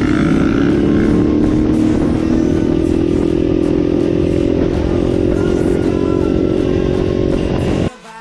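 Motorcycle engine running steadily under way, its pitch drifting gently. It cuts off abruptly near the end, and quieter music begins.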